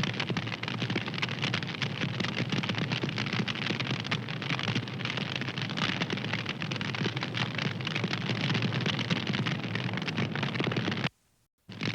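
Wood fire crackling steadily, with a dense stream of small pops and snaps. It cuts out to silence for about half a second near the end, then resumes.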